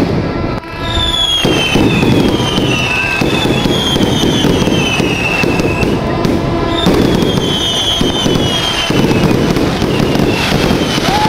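Aerial fireworks shells bursting overhead in a continuous, loud barrage of booms and crackle, with high whistles sliding down in pitch again and again.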